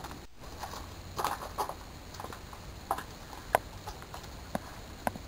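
Scattered sharp clicks and taps at irregular intervals, the loudest about three and a half seconds in, over a steady low hum.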